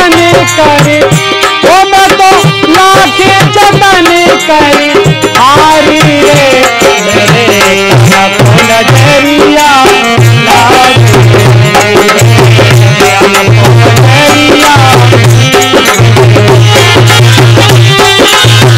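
Kirtan bhajan accompaniment: a harmonium playing the melody over a two-headed dholak drum, with small manjira hand cymbals keeping time. The dholak's deep bass strokes fall into a steady beat from about halfway.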